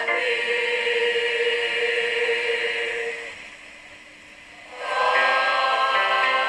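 School choir singing a long held chord that fades out about three seconds in. After a short lull, a new sustained chord enters shortly before the end.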